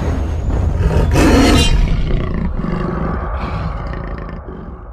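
Rose-ringed parakeet giving a loud, harsh screech about a second in, followed by weaker calls, over a steady low rumble. The sound fades out toward the end.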